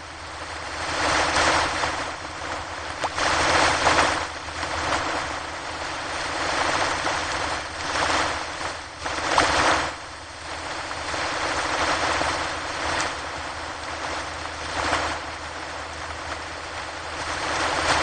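Ocean waves breaking on a shore: a continuous rushing wash of surf that swells and falls back every few seconds as each wave comes in.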